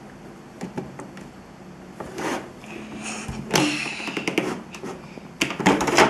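Plastic parts of a Play-Doh toy playset knocking and clicking as the mould is pressed down and handled by hand, in scattered taps with a loudest cluster near the end.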